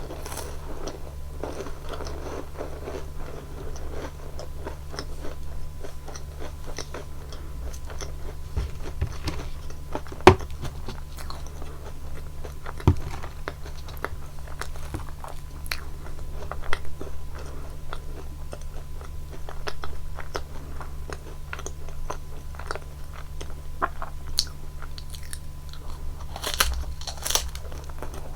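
Close-miked crunching bites and chewing of flaky sugared puff-pastry cookies (Nunettine) dipped in whipped cream, a run of crisp crackles with a few louder snaps, over a steady low hum.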